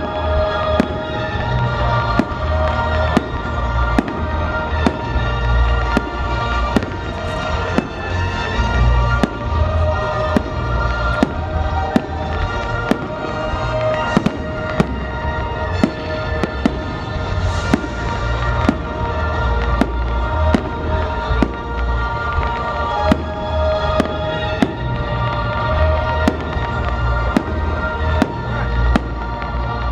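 Aerial fireworks display going off continuously: sharp bangs roughly once or twice a second over deep rumbling booms, with music playing underneath.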